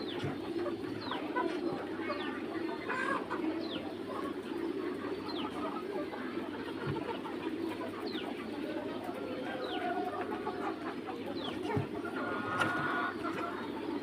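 A flock of young Mía chickens clucking over a steady low murmur, with short high chirps that drop in pitch about once a second and a longer call near the end.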